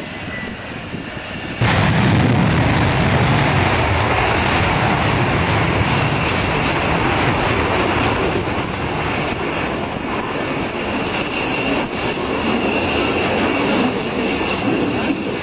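F-16 fighter jet engines running at high power on the runway: a loud, steady jet rush with a high whine. It comes in suddenly about a second and a half in, over quieter jet noise.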